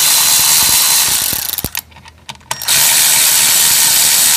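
Powered ratchet spinning out the clutch spring bolts on a 1982 Honda GL500, running in two long bursts with a short pause about two seconds in.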